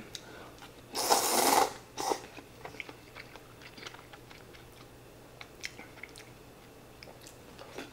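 Ramen noodles slurped in one loud burst about a second in, then quiet chewing with scattered soft clicks of chopsticks and a spoon in the bowl.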